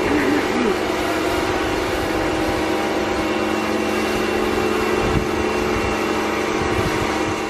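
A motor running with a steady hum and held tone, unchanging throughout, with a brief wavering note about half a second in.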